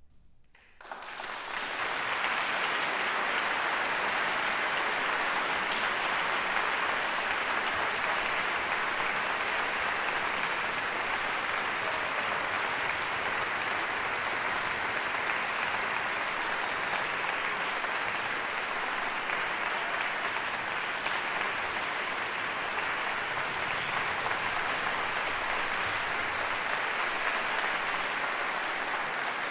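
Concert audience applauding, starting about a second in, swelling quickly and then holding steady.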